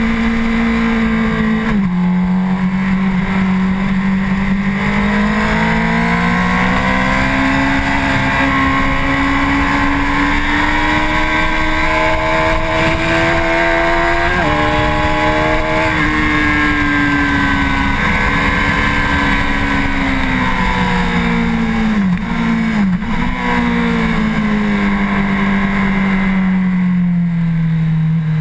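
Honda CBR1000RR's inline-four engine pulling hard at speed, its pitch climbing steadily until a sharp drop about halfway through at an upshift, then falling as the bike slows. A quick flurry of dips and rises from downshifts comes about three quarters through, followed by one more short pull. Wind rush runs under it all.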